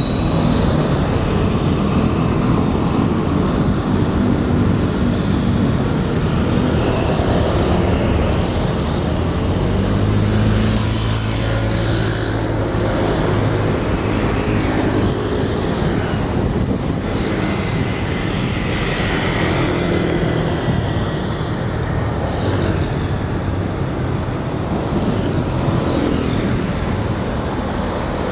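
Street traffic heard from a moving bicycle: motorbikes and cars running close alongside, under a steady rush of wind on the microphone. An engine drones louder about ten to fourteen seconds in.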